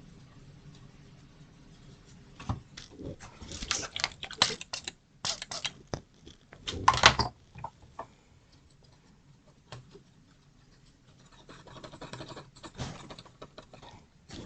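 Hands handling small parts: scattered clicks, taps and short rustles in bursts, loudest about seven seconds in, with a lull before a little more handling near the end.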